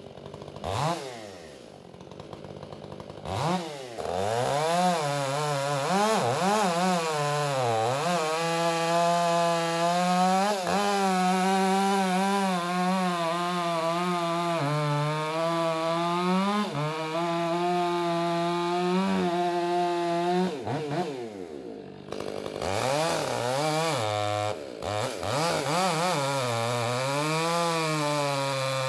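Stihl MS500i fuel-injected two-stroke chainsaw cutting through ash logs. It revs in short blips at first, then runs at full throttle through the wood, its pitch sagging and recovering under load. About twenty seconds in it drops back briefly, then revs up and cuts again.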